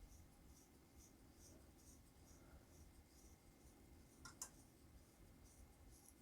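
Faint scratching of a Kita-Boshi 2mm mechanical pencil's graphite lead writing on paper, in short strokes about two a second, with a brief click about four seconds in.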